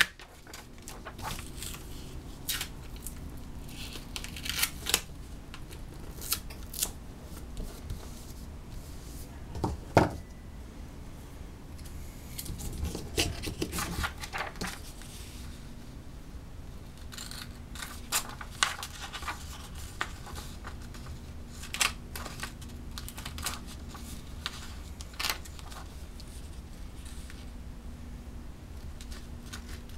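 Tyvek sheet being handled and cut: crinkling rustles and scissors snipping through the Tyvek, with scattered clicks and one sharp knock about ten seconds in.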